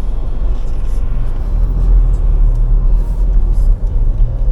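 Steady low rumble of a car on the move, its road and engine noise.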